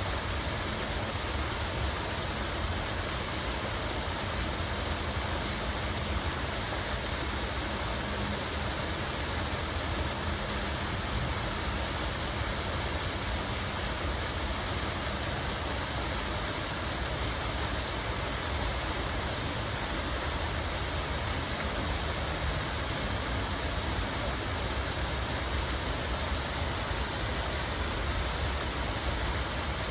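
Steady rush of running water, an even noise that does not change, with a low rumble underneath.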